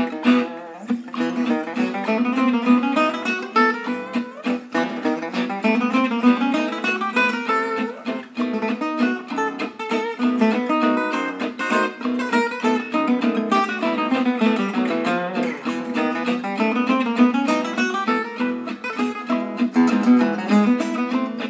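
Background music: an instrumental piece of plucked guitar, notes picked in quick succession over a steady low note.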